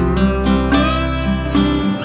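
Background music led by acoustic guitar, plucked and strummed notes over a held low bass note.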